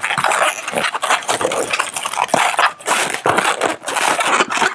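An inflated 260 latex modelling balloon squeaking and rubbing in the hands as it is twisted into bubbles, a run of uneven, scratchy squeaks.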